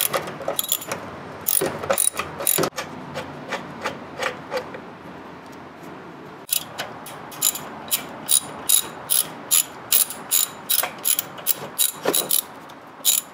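Socket ratchet clicking as a 10 mm bolt holding the intake resonator box is backed out. The clicks come in short uneven bursts at first, then after a pause run steadily at about three clicks a second.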